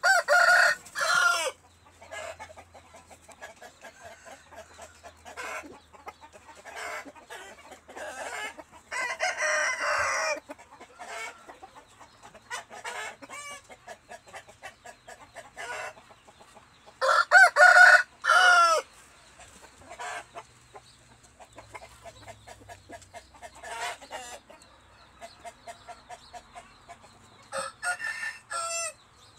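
Chickens clucking in short repeated notes, with groups of louder pitched calls at the start, around the middle and again near the end.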